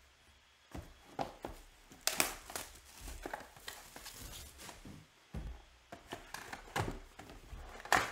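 A cardboard trading-card hobby box being handled and opened by hand: irregular crinkling, rustling and light knocks of cardboard and wrapper, loudest about two seconds in and again near the end.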